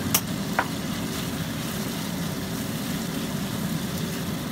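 Chicken pieces sizzling steadily as they fry in a nonstick wok, with two sharp clicks in the first second.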